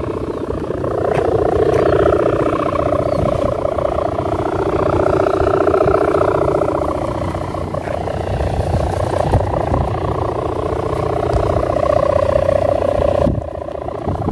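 Kite hummer (sendaren) with a 0.25 mm mica ribbon, strung on a bow over a flying bat kite, buzzing in the wind: a loud, fast-pulsing drone like a helicopter that swells and fades every few seconds, over wind rumble on the microphone. It drops off sharply near the end.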